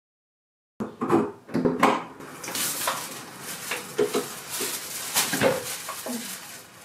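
After a second of silence, a front door's latch clicks and the door knocks open. Then plastic shopping bags rustle and crinkle, with the groceries inside clinking and knocking together as they are carried in.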